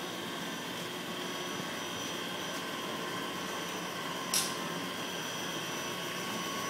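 Toyoda cylindrical grinder running its traverse grinding cycle: a steady machine noise with a thin high whine, and one short hiss about four seconds in.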